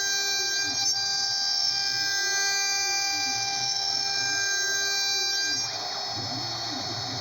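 Home-built CNC router running: a steady high spindle whine, under lower motor tones that rise and fall about once a second as the axes speed up and slow down. The sound shifts and gets a little quieter about three-quarters of the way through.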